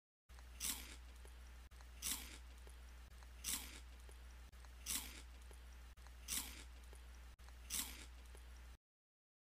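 Crunchy bites into a chocolate or candy bar: six short, sharp crunches of the same shape, about one every second and a half, over a low steady hum. The sound cuts off abruptly near the end.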